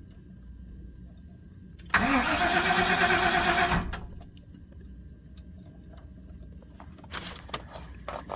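The 1997 GM truck's 5.7 V8 being cranked by the starter for about two seconds without firing: a cold crank-no-start, which the owner puts down to fuel pressure leaking back through the in-tank fuel pump's check valve. A few faint knocks follow near the end.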